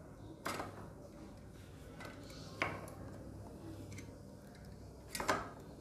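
Faint metallic clicks and taps from a bicycle's mechanical disc brake caliper being handled and seated on its fork mount: one about half a second in, a sharp click near the middle, and a louder pair near the end.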